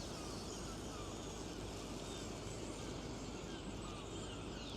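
Steady outdoor hum of distant traffic, with many small birds chirping and twittering over it.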